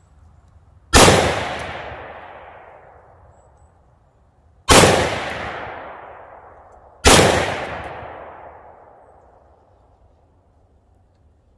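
Three shots from a 300 AAC Blackout AR pistol, about a second in, near five seconds and about seven seconds in, each with a sudden onset and a long echo dying away over two to three seconds.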